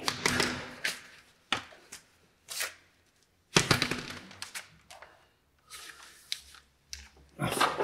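Workshop clatter of hand tools and metal car parts being handled while a brake caliper is refitted: a string of sharp clicks and knocks, with a longer scraping rattle about halfway through.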